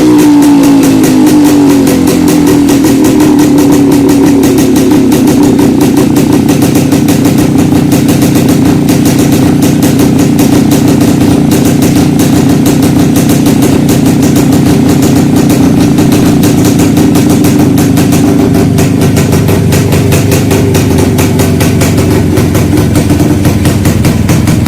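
Old Jawa two-stroke motorcycle engine running. The revs fall over the first couple of seconds, then it runs on steadily at idle.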